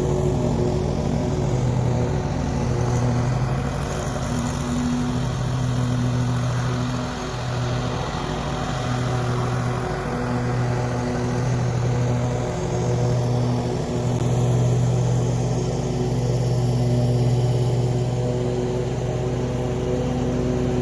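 Small petrol engine running steadily at a constant speed, its hum dipping briefly a couple of times.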